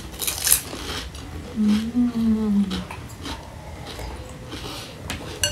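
Eating sounds at a table: light clinks of a spoon against a bowl and plate among small mouth noises, with a woman's voice sounding once for a little over a second, about a second and a half in.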